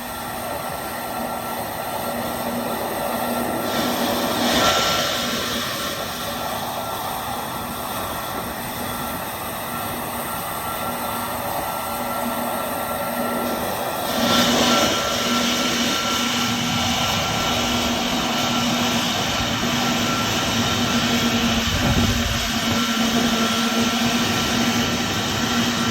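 Jet airliner engines running at low power, a steady hum and whine under a broad rushing hiss that swells briefly about four seconds in and grows louder from about halfway through.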